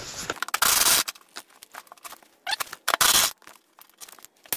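Hook-and-loop (Velcro) strips on a snowmobile's vinyl seat cover being torn apart in two short, scratchy rips, about two seconds apart, with small rustles between them.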